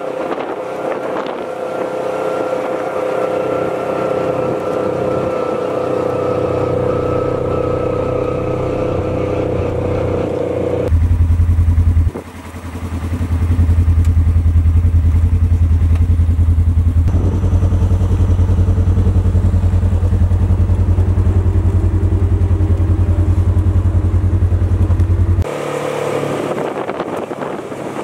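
Polaris RZR side-by-side's engine running steadily while driving, with a steady whine. About 11 seconds in it switches to a much louder, deep drone heard from inside the cab, which switches back to the lighter engine sound near the end.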